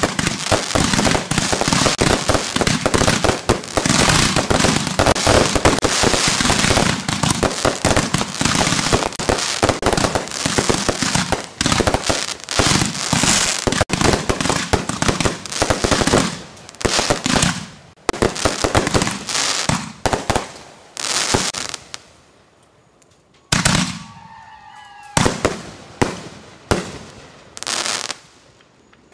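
Consumer aerial fireworks finale: a dense, rapid barrage of bangs for about the first half, thinning into separate bursts with short quiet gaps, and a last few single bangs near the end.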